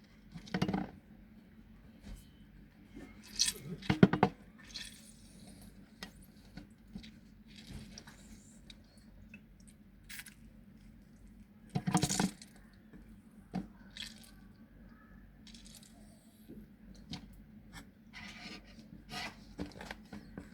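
Scattered clinks, knocks and scrapes of kitchen utensils and glassware being handled, loudest about half a second in, around four seconds in and around twelve seconds in, over a faint steady hum.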